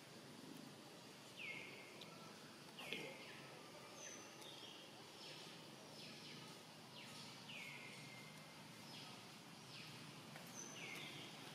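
Faint animal calls: short chirps that each slide down in pitch, repeated roughly once a second over a low outdoor background hiss.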